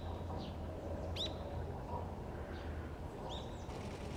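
A small bird chirping: a few short, high calls, each sweeping up and holding briefly, one every second or two, over a steady low outdoor hum.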